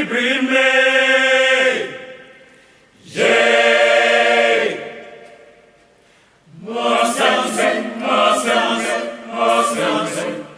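Choir singing: two long held phrases that each fade away, then a livelier phrase of shorter notes from about six and a half seconds in.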